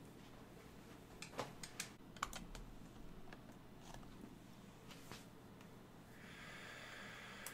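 Faint clicks at a computer desk, with a quick cluster of sharp clicks about a second in and a couple of lighter ticks later. Near the end comes a soft hiss lasting about two seconds.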